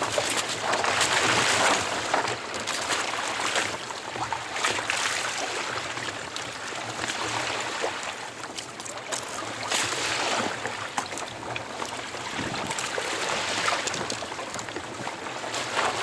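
Choppy sea water splashing and rushing against the hull of a kayak under way, rising and falling in loudness, with some wind on the microphone.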